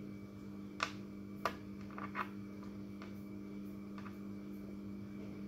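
Quiet handling of dumpling dough: a few soft clicks and small taps as a filled vareniki dumpling is pinched shut by hand, about five in the first four seconds, over a steady low hum.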